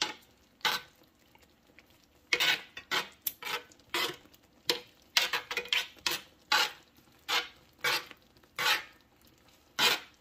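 Metal spoon scraping and clinking against a roasting pan while stirring onion gravy around cube steaks, in short irregular strokes. There is a brief pause about a second in.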